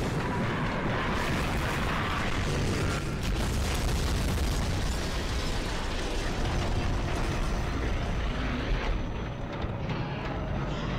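Animated battle sound effects: mechanical clatter of giant robots moving, mixed with explosions and rumble, in one dense, steady din.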